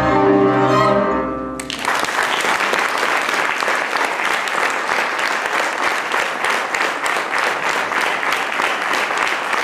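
A Kalotaszeg folk string band of fiddle, viola, cimbalom and double bass holds its final chord, which breaks off about a second and a half in. An audience then applauds with steady clapping.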